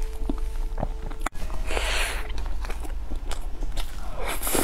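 Close-miked mouth sounds of a person eating soft cheesecake from a fork: wet chewing and biting noises with a few sharp clicks. A short hiss comes about two seconds in.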